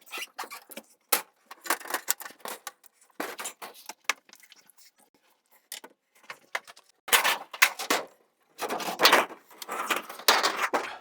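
Equipment being handled and moved about: a quick run of clicks, clanks and rattles, then three longer scraping, rattling noises in the second half.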